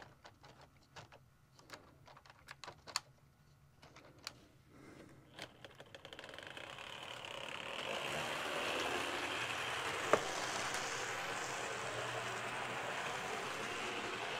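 An HO scale model steam locomotive is set on the track with a few light plastic clicks and taps, then from about six seconds its motor and wheels run along the rails with a steady whirring rattle, with one sharp click at about ten seconds. The engine runs rough, in need of a tune-up in the owner's view.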